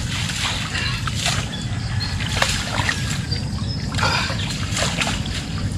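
Water splashing and sloshing in irregular short bursts over a steady low rumble.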